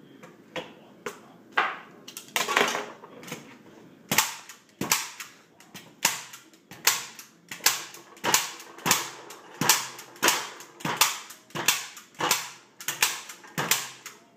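Arrow staple gun fired again and again into a mannequin head: sharp snapping clicks, a few spaced shots at first, then a steady run of about fifteen shots, roughly one and a half a second.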